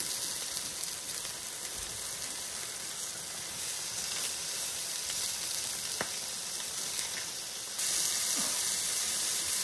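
Nopal cactus paddles sizzling on a hot foil-lined griddle, with a single click about six seconds in. The sizzle turns suddenly louder near the end as fresh raw paddles are laid on the griddle.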